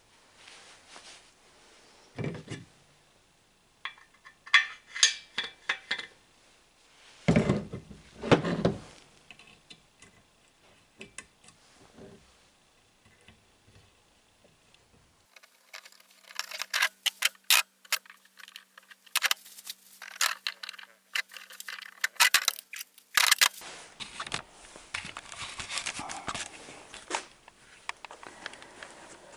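Irregular clinks, taps and knocks of small metal parts and tools being handled on a workbench while a cotter pin is fitted to a tractor oil pump, with a busier run of rapid clinking past the middle.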